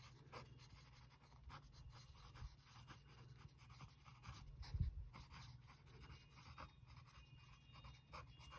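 Pen writing on workbook paper: faint, irregular scratching strokes as words are written by hand, with a soft low thump about five seconds in.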